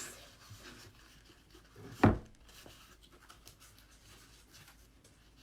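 Faint scraping and rubbing of canvas being pried off a wooden frame, with one sharp knock about two seconds in.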